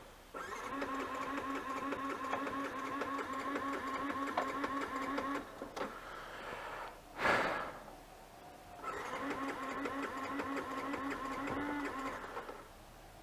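Motorcycle electric starter cranking the engine in two long attempts of about five seconds each, with a steady fast whirr that stops abruptly each time. The engine does not fire: the bike has broken down. A short burst of noise comes between the two attempts.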